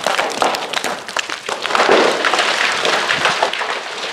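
Rockfall: loose rocks clattering and cracking as they tumble down a rock cliff face, a dense run of knocks and crashes, loudest about two seconds in.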